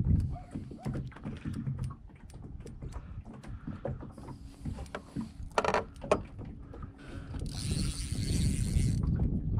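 Carp-fishing reel and rod being worked while playing a hooked carp: irregular clicks and winding with a low handling rumble. There is a short sharp sound about halfway through, and a hiss lasting about a second and a half near the end.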